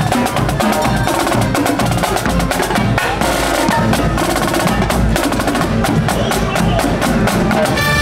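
Marching drumline playing snare drums and a bass drum in a fast, steady cadence of rapid snare strokes over bass-drum beats.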